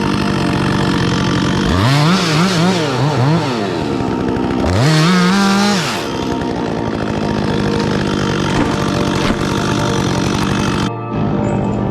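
Chainsaw engine idling, revved up twice in the first half, its pitch rising and falling, then settling back to a steady idle.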